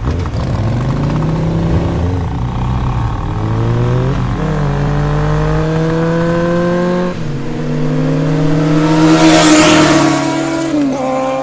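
Several racing engines accelerating, their pitch climbing steadily and dropping back at upshifts about four and seven seconds in, with a rush of noise as they pass about nine seconds in.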